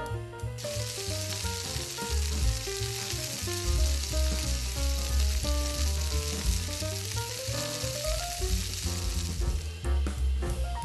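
Pork belly slices sizzling as they fry in oil in a pan, the sizzle starting abruptly about half a second in and dying down near the end. Background music with a drum beat plays throughout.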